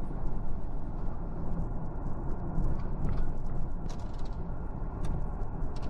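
Ford Ranger being driven: steady road and engine rumble, with a few light clicks and rattles.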